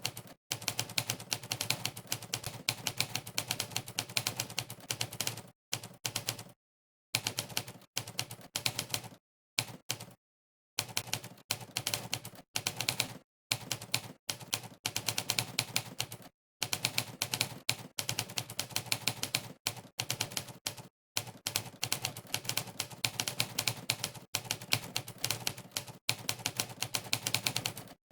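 Monkeytype's typewriter keypress sound effect, a typewriter key clack played for each keystroke, in rapid runs of typing broken by short stretches of dead silence.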